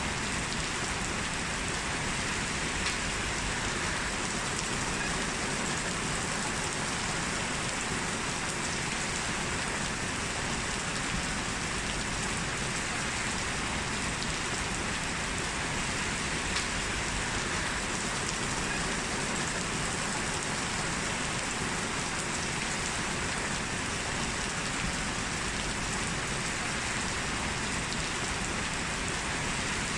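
Heavy rain falling steadily, an even unbroken hiss of rain hitting the ground with a few individual drop impacts.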